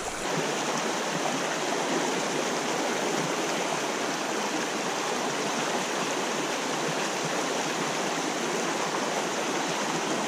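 A small stream running steadily: an even rush of moving water that holds level without a break.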